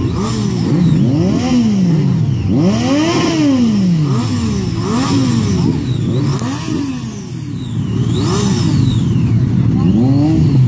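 Several parked superbikes revving their engines in short throttle blips, each engine note rising and falling back, about one a second and overlapping, with a brief lull about two-thirds of the way through.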